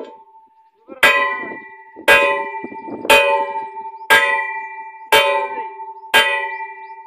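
Hammer blows on the end of a metal water pipe: six strikes about a second apart, each one ringing with a clear metallic tone that dies away before the next.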